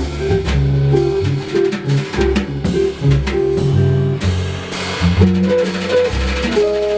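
A jazz trio playing live, with a drum kit and guitar over a moving line of low bass notes.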